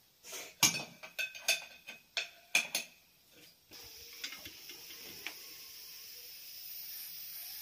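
Aluminium cooking pot and lid clanking and clinking as they are handled and set on a small gas burner. About halfway through a steady gas hiss starts as the burner is lit.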